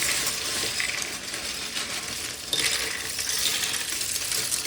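Loose LEGO bricks clattering against each other in a steady stream of small plastic clicks as a bag of them is opened and the pieces are handled, with a louder clatter about two and a half seconds in.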